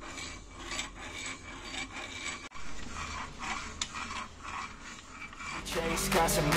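Faint, irregular rubbing and scraping with a few small clicks, then music coming in near the end.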